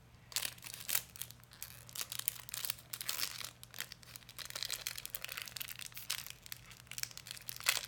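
Crinkly toy wrapper crumpling and tearing as a small packaged LOL Surprise accessory is unwrapped by hand, in irregular crackles with the sharpest one near the end.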